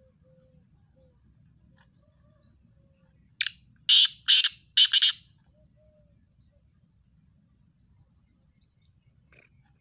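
A black francolin calling: four loud, harsh, grating notes in quick succession about halfway through. Faint thin whistles of other birds sound in the background.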